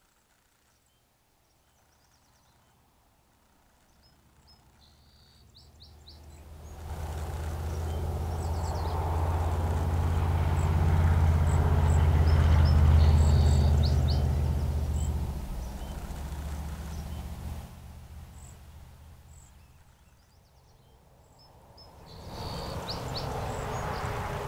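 Small birds chirping now and then, while a loud low rumble swells up over a few seconds, holds, and dies away in the middle; a rushing noise rises again near the end.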